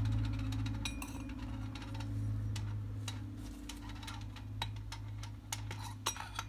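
Scattered light metallic clicks and ticks as the metal parts of a motorcycle front fork, its inner cartridge and tubes, are slid and knocked together during reassembly, over a steady low hum.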